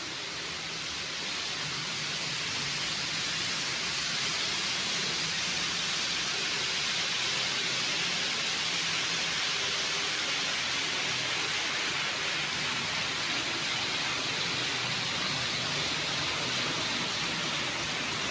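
N gauge model train running on the layout's track: a steady whirring hiss that swells over the first few seconds and then holds level.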